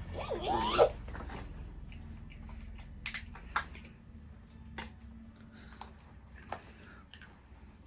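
A few sharp, light clicks and taps scattered through, over a low steady hum, with a short squeak that rises and falls in pitch in the first second.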